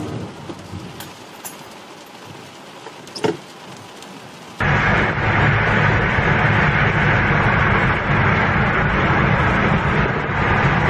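Steady in-cabin engine and tyre noise of a car driving at highway speed; it starts abruptly about four and a half seconds in and is the loudest sound. Before it comes quieter rushing rain and wind noise against a car windscreen, with a few sharp knocks.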